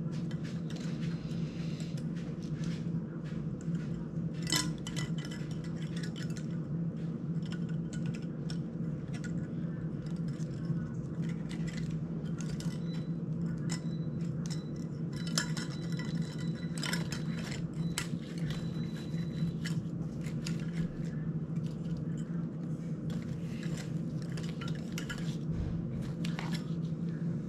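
Irregular small clicks and clinks of hands working on a cinewhoop drone's frame and plastic prop guards, with small parts tapping against each other, over a steady low hum.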